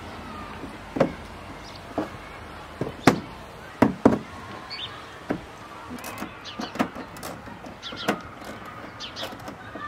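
Irregular sharp clicks and knocks of hand tools working the headlight's mounting fasteners, 7 mm bolts and a plastic pull tab, about ten of them, loudest around three and four seconds in.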